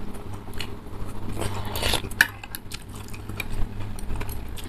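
Instant noodles slurped from a bowl of soup, with a longer slurp about a second and a half in. Around it are chewing and many short clinks of metal spoons and forks against ceramic bowls.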